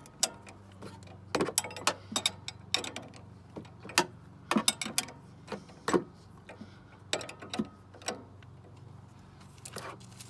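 Ratchet wrench clicking in short, irregular runs as it tightens the nut on the upper shock stud of a Bilstein front coilover.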